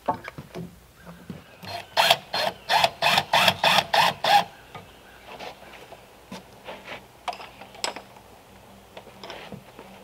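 A hand tool worked quickly against a wooden log rafter: an even run of about nine sharp strokes, three or four a second, starting about two seconds in. A few softer knocks and handling sounds follow.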